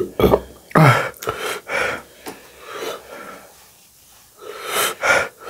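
A person's sharp, wheezy breaths and sniffs from the burn of very spicy food: a quick run of airy gasps over the first few seconds, a short pause, then two more near the end.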